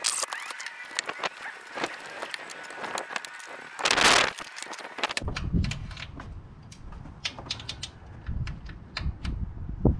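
Scattered clicks and knocks of hand tools at work on a starter's lower mounting bolt from under the car, with a short loud rush of noise about four seconds in, then a low rumble with sparser clicks.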